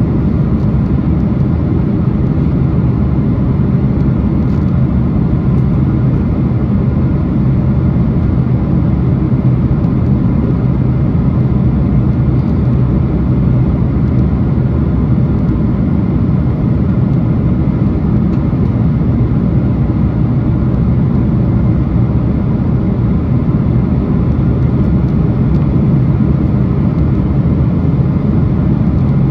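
Jet airliner cabin noise on final approach, heard from a window seat beside the engine: a steady, low rumble of engines and airflow with no change.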